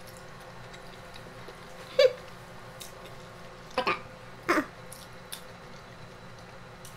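Short, high-pitched 'mm' sounds hummed through a full mouth while eating: one about two seconds in, then two that fall in pitch a little after the middle.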